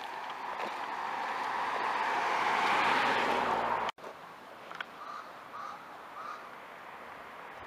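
A car passing on the road close by, its engine and tyre noise swelling steadily and then cutting off abruptly about four seconds in. After that, three short faint bird calls.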